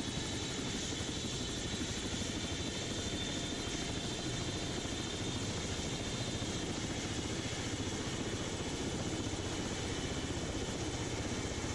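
Eurocopter EC120's Turbomeca Arrius 2F turboshaft engine running self-sustained just after start, with the main rotor turning: a steady helicopter running sound with a thin high turbine whine.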